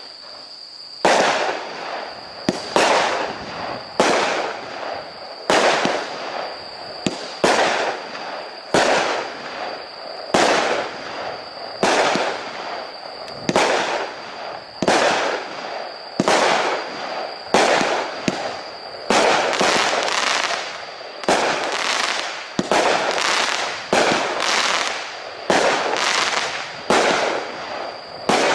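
A 36-shot, 200-gram consumer fireworks cake firing shot after shot, with a sharp bang about once a second, sometimes two close together. Each bang trails off briefly, and a steady high-pitched tone runs underneath.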